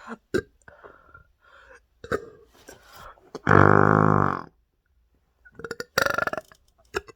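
A woman burping deliberately: one long, loud burp lasting about a second, starting about three and a half seconds in, then a shorter, rattling burp near the end.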